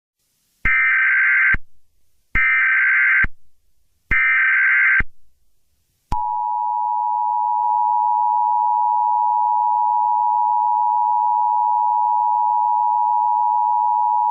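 Emergency Alert System SAME header: three identical bursts of data tones, about a second each with short gaps between them. About six seconds in, the EAS two-tone attention signal starts and holds steady for about eight seconds before cutting off.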